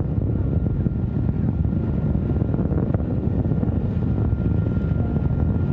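Antares rocket's first stage at full thrust during ascent, its two RD-181 engines giving a steady, rough low rumble as it climbs toward maximum dynamic pressure.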